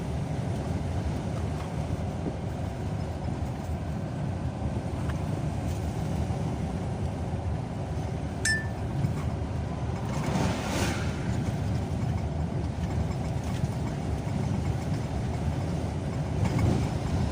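Steady low road and engine rumble of a car driving. Another vehicle rushes past about ten seconds in and again near the end.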